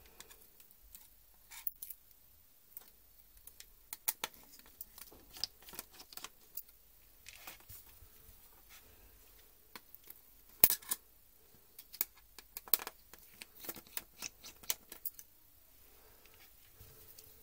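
Irregular clicks, taps and light scrapes of a small screwdriver and fingers on a laptop keyboard's metal backplate and plastic palmrest frame as the keyboard is worked loose and lifted. One sharp click, the loudest, comes a little past halfway.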